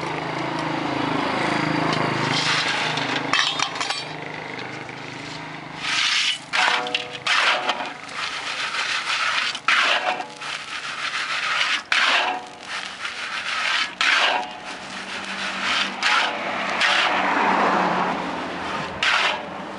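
Salt being stirred and scraped around a hot pan as boongra (far-far) snacks dry-roast in it: a run of irregular rasping strokes.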